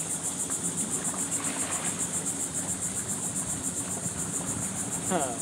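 Chorus of insects chirring in the mangroves, a high, rapid, even pulse that never lets up, over a faint steady low hum.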